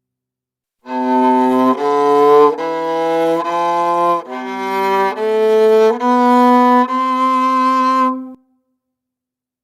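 Viola bowed through a scale of about eight notes, each a little under a second, the last note held longer before it stops.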